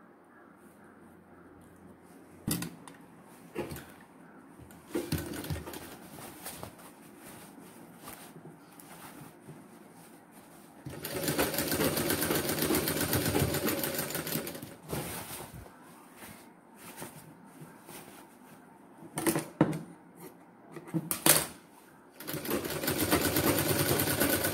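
Sewing machine stitching a sleeve seam in two runs: one of about four seconds near the middle and another starting shortly before the end, each with a fast, even stitch rhythm. Before and between the runs, fabric is being handled, with a few sharp clicks.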